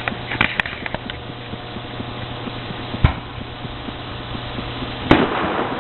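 Fireworks going off: a scatter of crackling pops in the first second, then two single bangs about three and five seconds in, the second trailing a brief crackling hiss.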